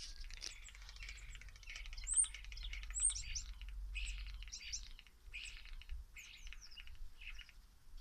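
Common starlings calling: a steady run of chattering, rasping notes mixed with short whistles, some sliding up high.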